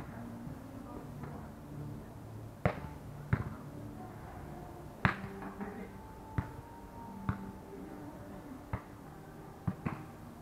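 Hands striking a volleyball during a beach volleyball rally: sharp, short smacks at irregular intervals, with two louder hits early and about halfway through.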